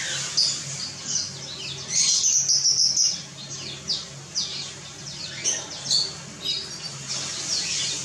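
Several small captive finches chirping in an aviary: many short, high chirps that overlap, with a longer, louder high call about two seconds in.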